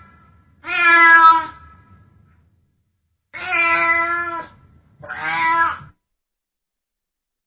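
Domestic cat in heat calling: three drawn-out, pitched meowing yowls of about a second each, the last one shorter.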